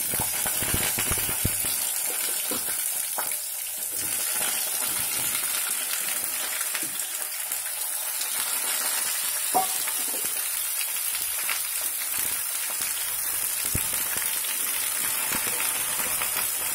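Hot oil sizzling and crackling steadily in a kadai as wet, freshly rinsed brinjal (eggplant) pieces go into the fried tempering, then a wooden spatula stirring them through the oil.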